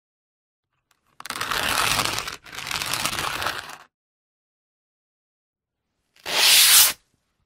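Sandpaper rubbed in scraping strokes: two strokes back to back starting about a second in, then a pause, then one shorter, louder stroke near the end.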